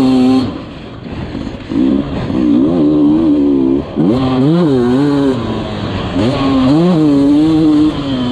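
Dirt bike engine revving hard, its pitch climbing and falling as the throttle is worked. The throttle is chopped sharply about half a second in, briefly again just before four seconds, and once more near the end, each time opened back up.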